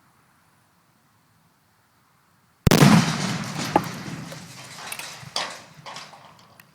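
Half-pound Tannerite charge exploding about two and a half seconds in: one sudden sharp blast, followed by a long rumble that fades over the next few seconds, with a few smaller cracks in the tail.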